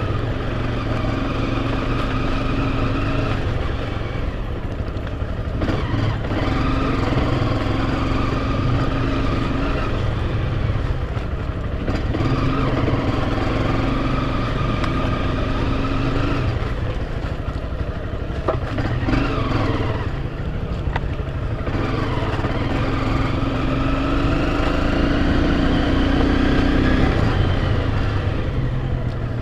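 Enduro dirt bike engine running while being ridden, the revs rising and falling several times, over a steady low rumble.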